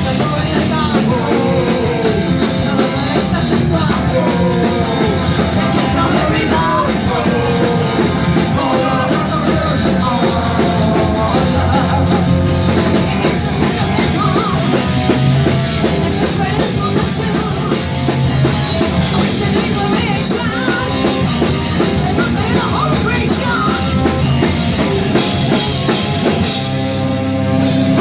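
Punk rock band playing loud live, drums and guitars with a singer's voice over them.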